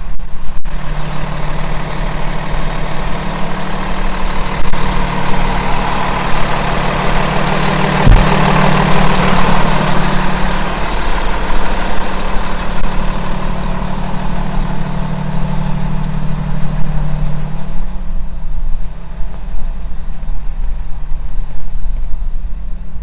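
Steady low engine hum, as of a vehicle idling, with a broad swell of noise about eight to ten seconds in and a single knock near eight seconds. The hum fades out after about eighteen seconds.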